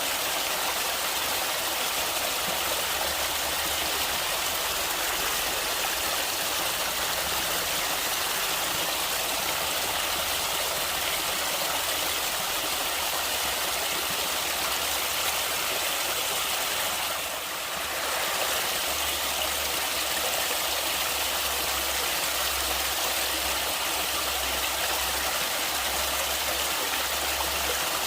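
River water flowing and splashing in a steady, unbroken rush, briefly dipping in level about two-thirds of the way through.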